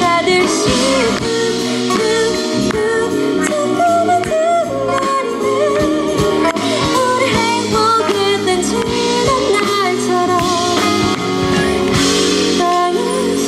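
A woman singing a ballad live into a handheld microphone, held notes wavering with vibrato, over band accompaniment through the PA.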